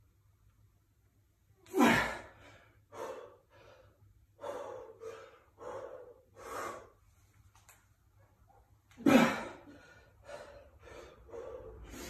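A weightlifter breathing hard and gasping between reps, late in a 15-rep set of 90 kg barbell back squats. There are two loud, sharp exhales, about two seconds in and again about nine seconds in, with quicker, lighter breaths between them.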